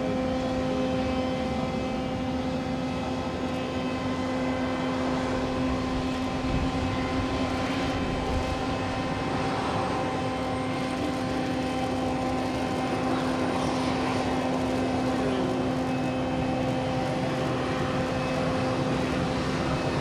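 Jet aircraft engine noise: a steady rumble with several whining tones that hold one pitch throughout.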